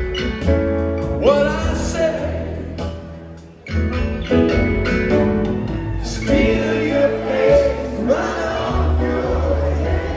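Live rock band playing a song with sung vocals. The music thins out around three seconds in, then the full band comes back in strongly.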